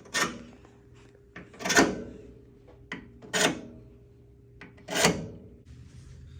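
Hand file scraping on a metal replacement dipstick part, four slow strokes about a second and a half apart, shaping the part to fit the tube.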